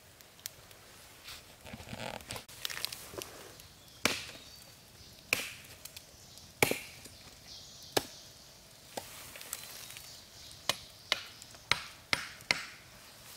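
Machete chopping into wood: about a dozen sharp, separate strikes at uneven intervals, starting about four seconds in, after a few seconds of softer rustling.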